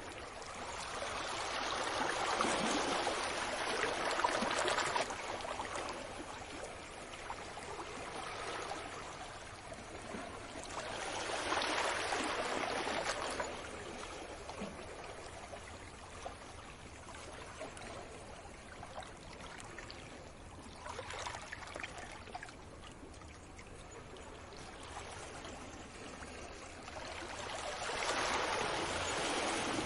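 Sea waves washing up on a beach. The surf swells and fades in slow surges about every eight to nine seconds, with a quieter wash between them.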